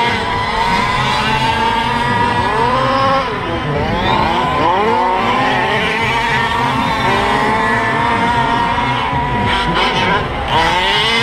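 Several 1/5-scale gas-powered Losi 5IVE-T RC trucks racing, their small two-stroke engines overlapping at a high steady pitch. Between about three and five seconds in, the engines drop in pitch and climb again as the trucks brake and accelerate.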